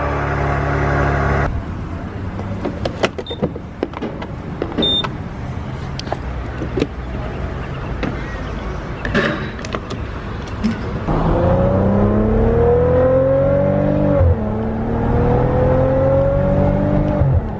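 Maserati engine pulling away. Scattered clicks and taps come first. Then, a little after halfway, the engine note rises steadily, drops at an upshift, and climbs again.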